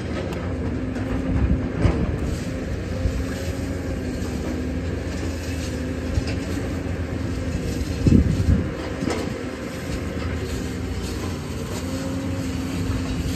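Construction machinery running steadily with a low hum, with scattered knocks and clanks from the excavation work; the heaviest knock comes about eight seconds in.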